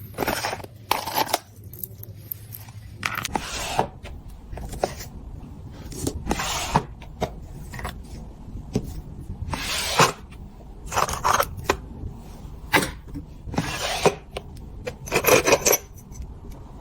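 Metal pieces of a self-defense keychain set clinking and scraping together as they are handled, in a dozen or so short irregular bursts.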